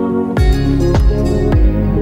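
Background electronic music with a steady kick-drum beat about twice a second and a rising swell of hiss in the middle.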